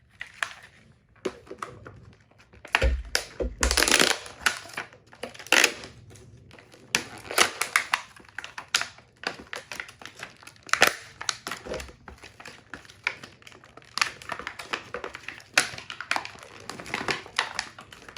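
Retail packaging being opened by hand: irregular crackling, tearing and scraping of the box and its wrapping, broken by sharp clicks. There are a few dull thumps about three seconds in.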